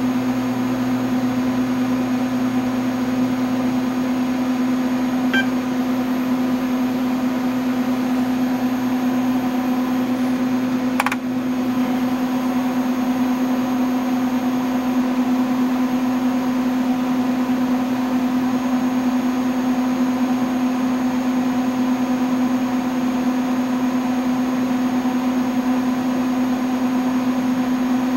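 PDP-8/M minicomputer running steadily, its cooling fans and power supply giving a constant hum. A faint short bell tone about five seconds in, the terminal bell signalling a completed diagnostic pass, and a brief click about eleven seconds in.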